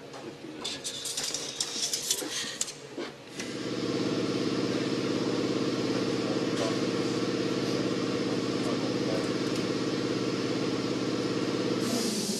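Clattering and knocking, then a steady machine hum that starts abruptly about three seconds in and holds level until it stops just before the end.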